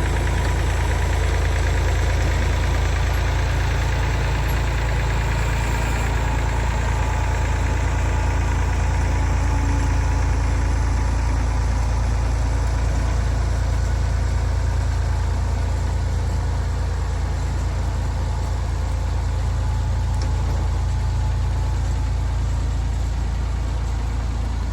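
Tractor engine running steadily as it pulls a scrape blade across loose dirt to level the ground.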